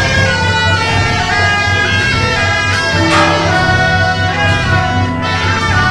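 Music: a melody of held notes on wind instruments over a steady beat.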